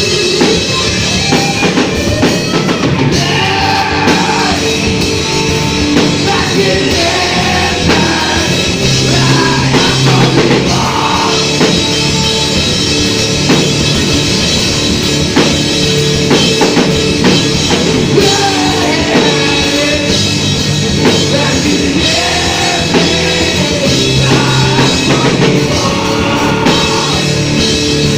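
Loud heavy rock band music with a drum kit and a singing voice, playing steadily throughout.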